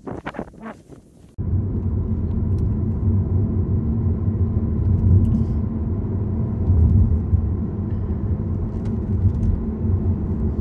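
Car driving along a road: a steady low rumble of road and engine noise that starts suddenly about a second and a half in.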